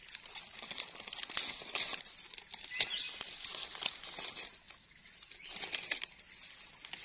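A knife scraping and trimming the dirt-caked stems of freshly picked bolete mushrooms, amid rustling of dry leaves, in irregular small scrapes and clicks.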